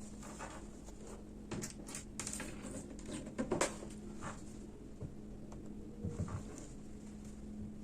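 Light handling sounds of cotton lining fabric and a crochet bag being pinned: scattered small rustles and clicks, busiest about three and a half seconds in, over a steady low hum.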